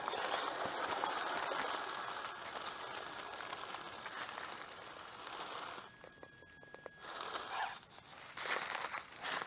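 Dry leaf litter and twigs crunching and scraping, steady for about six seconds, then dying away before a few louder crunches near the end.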